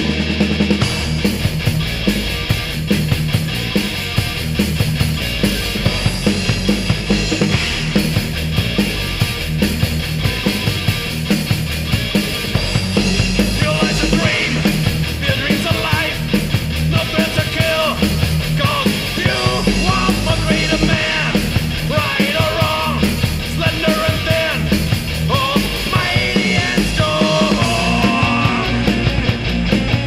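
Thrash metal recording played loud, driven by fast, even drumming. A higher, wavering melody line joins about halfway through.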